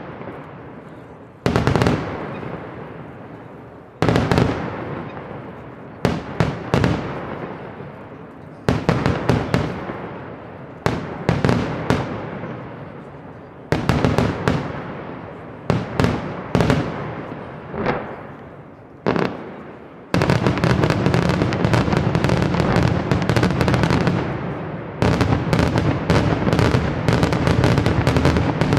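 Daytime fireworks display: aerial shells bursting with loud bangs, each trailing off in a long echoing decay, fired singly and in quick clusters. About twenty seconds in they give way to a dense, continuous barrage of rapid reports.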